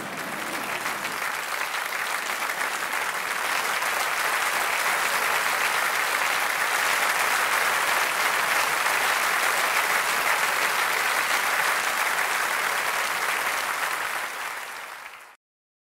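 Theatre audience applauding: the clapping builds over the first few seconds, holds steady, then thins out and cuts off abruptly near the end.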